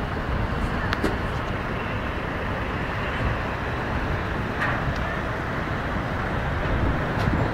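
Steady rush of road traffic, with a few faint clicks.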